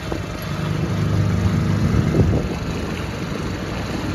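Dinghy's outboard motor running steadily under way, a low hum that swells a little about half a second in and eases back after about two seconds.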